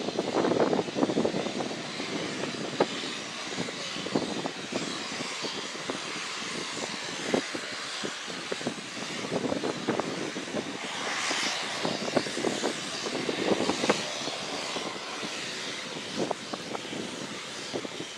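A BAe Jetstream 32's twin turboprop engines running as the aircraft taxis along the runway. The engine noise is loudest in the first second or so, then holds steady, with scattered sharp crackles.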